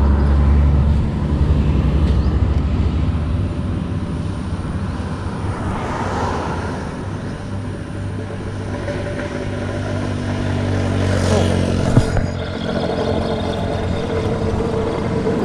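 Road traffic: motor vehicle engines running and passing by, loudest at the very start and rising and falling as they go. A single sharp knock comes about 12 seconds in.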